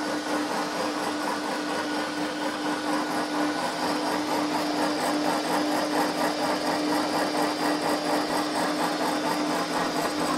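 Small electric animal-feed pellet mill running under load, pressing feed into pellets that spill from its discharge chute. A steady motor hum with dense, even mechanical noise over it.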